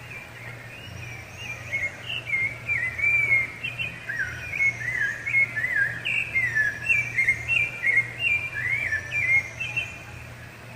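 Rufous-bellied thrush singing a run of clear, fluty whistled notes that glide up and down. The song starts about a second and a half in and stops shortly before the end.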